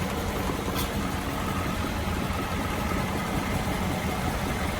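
Toyota Highlander running in drive on stands with its wheels turning freely, a steady rubbing noise coming from the right wheel, with a brief click about a second in. The rubbing comes from loose wheel lug nuts left under-torqued after a brake job.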